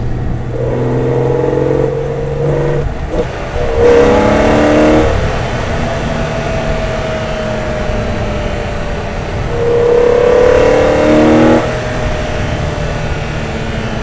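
BMW E46 M3's 3.2-litre S54 straight-six with an Eventuri carbon intake, heard from inside the cabin while being driven hard: the engine note rises in three pulls of acceleration, the second and loudest about four seconds in. Between the pulls it falls back to a steadier, slowly dropping drone.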